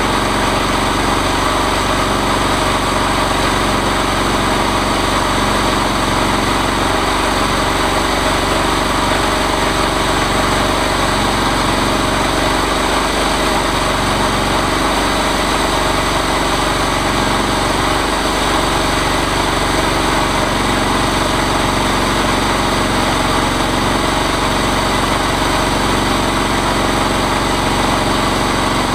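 Engine of a chainsaw mill running steadily at one constant speed, with no change in pitch or level.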